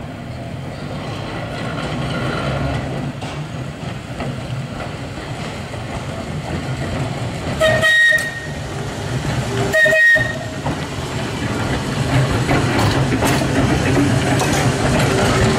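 Manx Electric Railway tramcar with its trailer approaching and passing close by, the rumble of its wheels and motors growing louder as it nears. About halfway through it gives two short warning blasts, two seconds apart.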